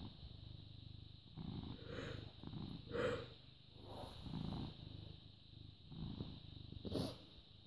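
British Shorthair cat purring close to the microphone, a low rumble that swells and fades with each breath, with a couple of brief louder noises about three seconds in and near the end.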